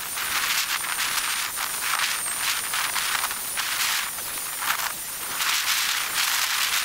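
Corded handheld electric power tool running over the surface of a weathered timber beam: a thin, high motor whine over a rasping hiss that swells and eases as the tool is worked along the wood.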